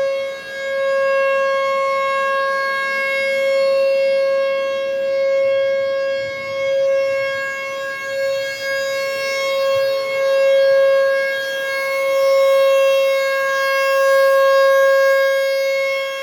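Outdoor warning siren sounding a steady held tone, its loudness swelling and fading every few seconds; the second siren of the night, which the listener takes for a tornado warning.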